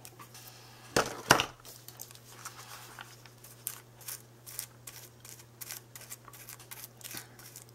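Paper pages of a handmade journal being handled and pressed, rustling and crinkling. There are two louder rustles about a second in, then a run of small crackles and clicks as the pages are worked.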